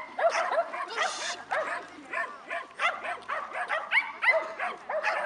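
A dog barking and yipping in a quick, unbroken string of short high-pitched barks.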